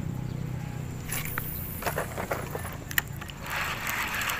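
A low steady hum with scattered clicks and scraping of handling about one to three seconds in. The hum fades about three seconds in, and a steady hiss takes over.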